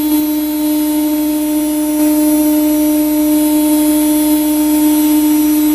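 Thermwood CS Model 40 CNC router running: a loud, steady hum held at one pitch, with a faint high whine above it.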